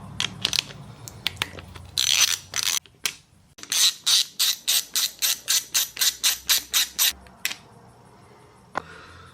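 Socket ratchet clicking in an even run of about four clicks a second, working loose the 8 mm bolts of the oil filter cover on a Kawasaki KX250F engine. It is preceded by a few scattered clicks and a brief scrape.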